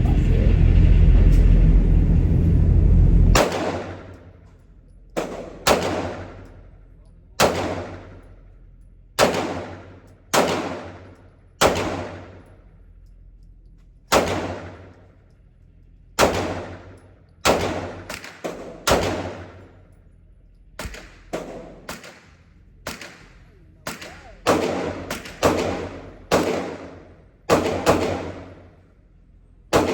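A low rumble cuts off about three seconds in. It is followed by about two dozen pistol shots from a Glock 19 handgun, fired one at a time at first, then closer together, each shot ringing out in the range.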